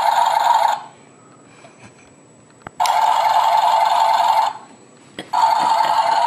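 A plastic toy tractor's electronic engine sound played through its small speaker in three steady, buzzy bursts of about a second and a half each, the second and third each set off by a click of its button.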